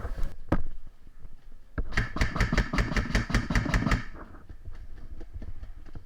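Airsoft gun firing: a couple of single shots, then a rapid string of about a dozen shots lasting about two seconds, starting about two seconds in.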